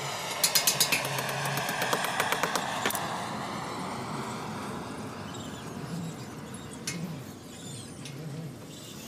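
Hammer tapping on metal: a quick run of about seven light metallic taps about half a second in, another run around two seconds in, and single knocks near three and seven seconds in.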